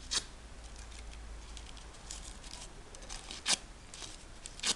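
Pinking shears snipping through crepe paper: three sharp snips, one just after the start, the loudest about three and a half seconds in, and one near the end, with softer paper crackling in between.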